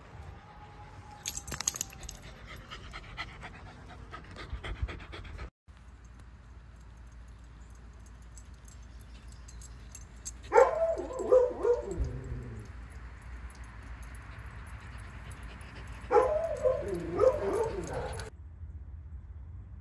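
A corgi vocalizing in two runs of wavering, pitched calls about six seconds apart, each about two seconds long. The first run slides down in pitch at its end.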